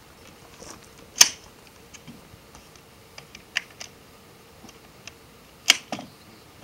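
Gunshots from an AR-15 rifle, a few sharp reports at uneven spacing: the loudest about a second in, fainter ones around three and a half seconds, and two close together near the end.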